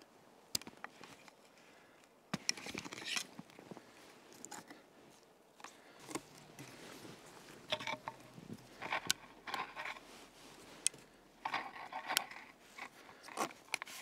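Irregular bursts of crunching and scraping in wet snow close to the microphone, with a few sharp clicks between them: someone shifting about on foot and handling gear.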